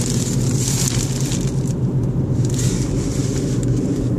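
Steady hum of a car's engine running, heard inside the cabin, with the crinkle and rustle of plastic packaging being handled.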